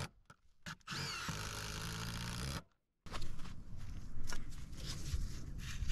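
Cordless drill running steadily for about two seconds, driving a lug bolt to fasten a solar roof tile hook. After a brief silence, light clicks and knocks of tools being handled and set down on concrete roof tiles.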